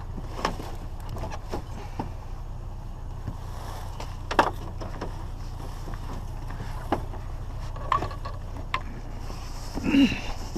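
Scattered knocks and clunks of a large television being handled at the curb, over a steady low engine hum. A louder short burst comes near the end.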